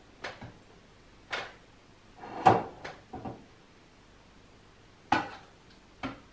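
A series of short knocks and clinks of a kitchen utensil against frying pans and a plate as food is served out. They come at uneven intervals, the loudest about two and a half seconds in.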